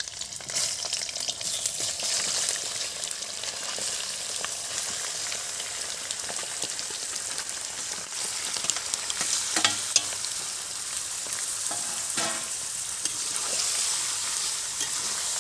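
Raw chicken pieces sizzling steadily as they go into hot oil in a steel kadai. A steel spoon gives a few clinks and scrapes against the bowl and pan as the meat is pushed in and stirred.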